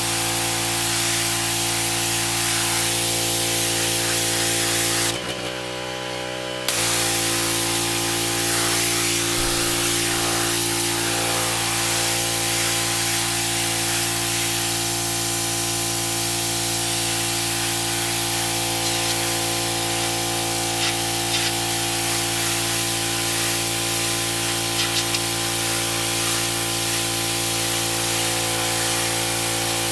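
Power Stroke 3200 PSI gas pressure washer: the engine runs steadily while the high-pressure water jet hisses. About five seconds in, the spray cuts out for a second and a half with the engine still running, then starts again.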